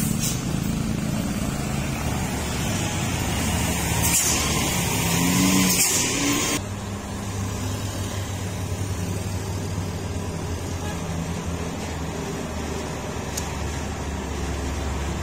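Heavy diesel trucks and motorcycles running at low speed at a steep bend, with loud air-brake hisses about four seconds in and again from five to six and a half seconds in. After a sudden change, the steady low drone of a truck's and a coach's diesel engines crawling round a hairpin.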